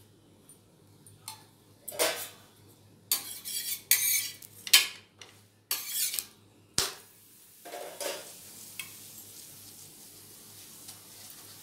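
Metal spatula scraping and knocking against a tawa as a methi paratha is turned, with several sharp scrapes in the first half. After that comes a steady faint sizzle of the oiled paratha frying on the hot griddle.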